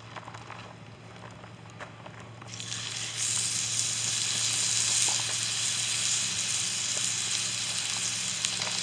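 A beef roast laid into hot oil in a cast-iron pot starts sizzling about two and a half seconds in, a loud, steady frying hiss as the meat sears. A few small clicks come before it.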